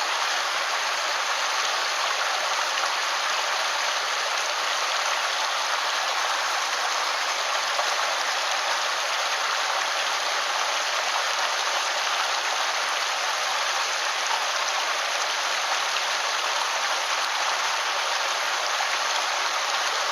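Mountain stream rushing over rocks: a steady, even water noise.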